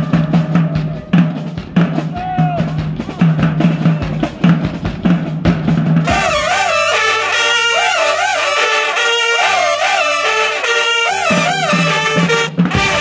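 High school marching band playing. Drums and a repeated low bass note carry a steady beat for about six seconds, then the full horn section comes in with the melody over the percussion.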